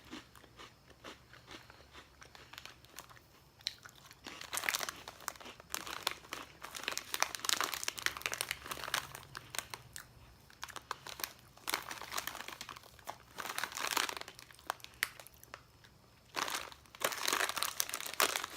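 Plastic snack packaging crinkling in irregular spells while small crunchy crackers are crunched and chewed close to the microphone.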